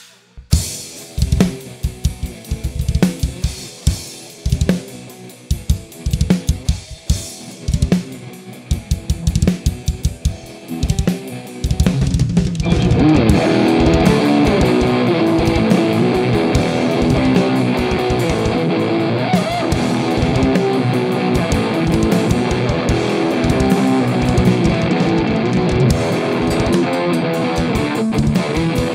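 Live death metal band opening a song: a drum kit plays alone for about the first twelve seconds, with bass drum and cymbal hits. Then electric guitar comes in and the full band plays on in a dense, continuous wall of sound.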